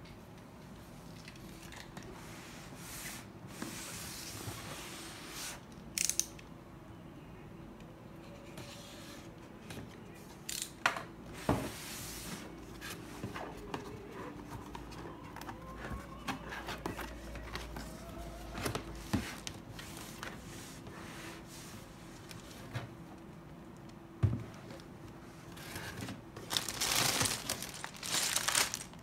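Cardboard boxes being handled and opened: sliding, scraping and tearing of cardboard with a few sharp knocks. Near the end, crinkling of plastic bags of Lego bricks as they are lifted out.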